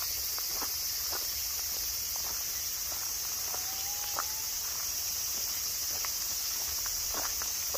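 Steady high-pitched chorus of insects singing in woodland, with footsteps on fallen leaves scattered through it.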